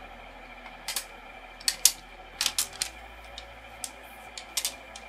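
Small hard plastic toy playset pieces clicking and clacking together as they are handled, about a dozen sharp clicks in uneven bunches.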